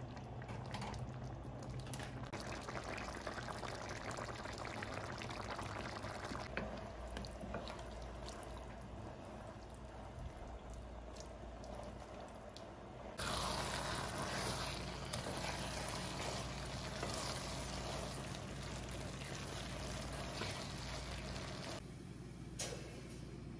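Spaghetti cooking in a tomato broth in a pot while it is stirred with a spatula: the liquid bubbles and sloshes, and the sound grows louder about halfway through.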